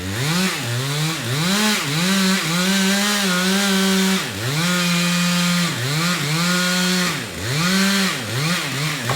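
Chainsaw engine revving hard over and over, its pitch rising to a high, held whine and dropping back about a dozen times as the throttle is squeezed and released during tree cutting.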